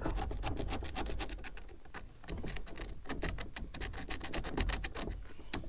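Rapid, repeated scraping strokes on a carburetor body, working at dirt that is stuck on hard, with a short pause about two seconds in.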